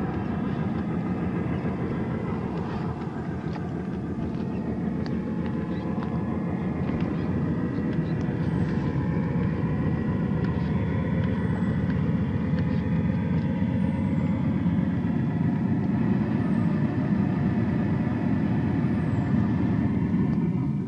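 A Traxxas TRX-4 1/10-scale RC crawler's stock brushed electric motor and gearbox whining steadily as it crawls slowly over debris, over a dense low rumble.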